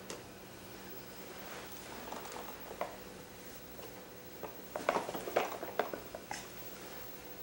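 Light clicks and knocks of a plastic activity toy being handled by a toddler, a few at first and a denser cluster about five seconds in.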